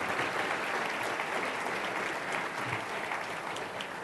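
Large audience applauding, the clapping slowly tapering off toward the end.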